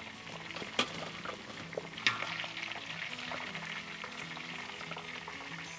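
Quails deep-frying in hot oil in a large wok, a steady sizzle, with two sharp metallic clinks about one and two seconds in as the metal strainer ladle knocks against the wok and steel tray.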